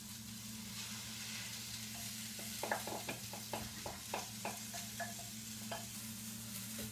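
Frying pan of vegetables and beans sizzling steadily as batter is poured in. From about two and a half seconds in, a spoon scrapes and taps against the bowl in a run of quick clicks, emptying out the last of the batter.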